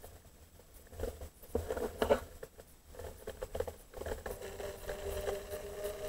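Underwater sound under pond ice picked up by a submerged camera: scattered soft taps and clicks with patches of low rumble, and from about four seconds in a steady two-toned hum. The hum is the strange sound that is likened to an electric train or trolleybus running.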